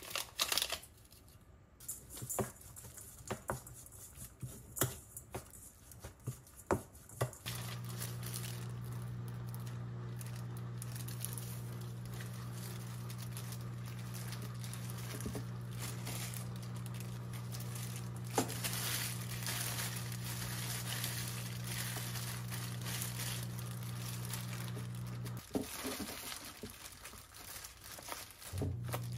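Thin plastic crinkling and rustling: a seasoning packet being squeezed, then disposable plastic food-prep gloves handling food, with small clicks. A steady low hum comes in suddenly about seven seconds in and cuts out shortly before the end.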